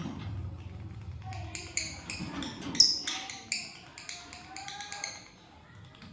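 Lovebirds chirping: a quick series of short, high chirps, the loudest about three seconds in, dying down after about five seconds.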